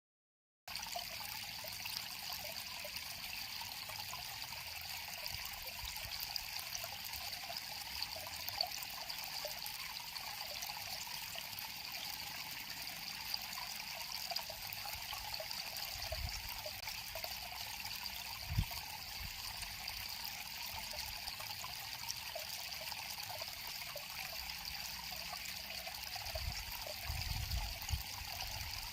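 River water flowing and trickling steadily over stones, a continuous splashing hiss that starts abruptly just under a second in, with a few soft low thumps now and then.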